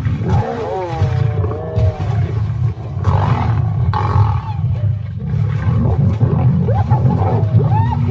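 Lions fighting at close quarters: a deep continuous growling rumble with snarling roars. Wavering higher cries come in the first second or two, and short rising-and-falling cries near the end.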